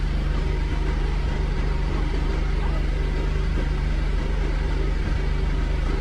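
An engine running steadily at a constant speed, a loud low drone.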